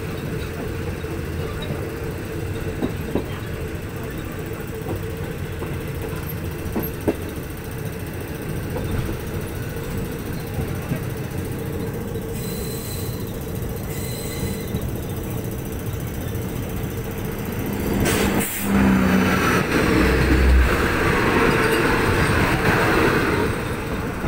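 Moving passenger train, heard from its open window: a steady rumble of wheels on rail with occasional clicks at the rail joints. About eighteen seconds in, a louder rush lasting several seconds as a train on the adjacent track passes close by.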